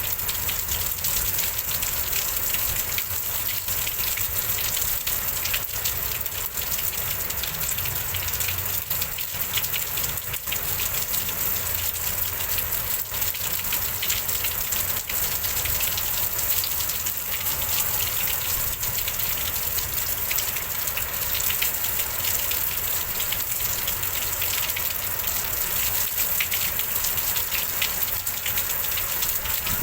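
Heavy rain pouring steadily in a rainstorm, an even rushing hiss with no let-up, with wind.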